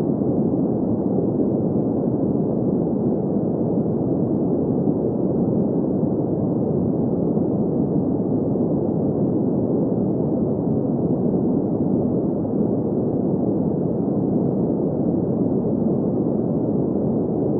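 Steady, unchanging green noise for sleep: an even, muffled hiss with its weight in the low middle and no high treble.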